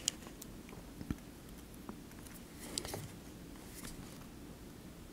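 Faint, sharp clicks and taps from small hand tools, a soldering iron and tweezers, touching the circuit board and plastic frame of a model locomotive while wires are soldered on; a few scattered about a second apart over quiet room tone.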